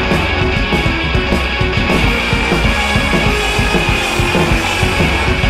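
Rock music backing track with a steady drum beat.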